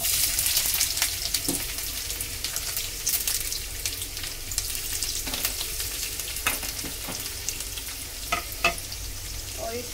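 Sliced onions sizzling and crackling in hot oil with browned garlic in a frying pan, loudest as they go in and then settling to a steady crackle. A few sharp clicks come in the second half.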